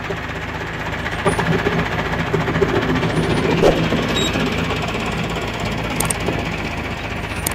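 Al-Ghazi tractor's diesel engine running steadily under load as it pulls a seed drill, with a few short clicks and rattles over the engine note.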